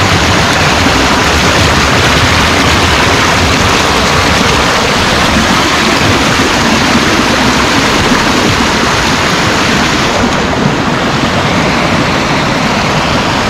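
Rushing water of a small stream cascade pouring over boulders into a clear rock pool, a loud, steady rush close by, turning a little duller about ten seconds in.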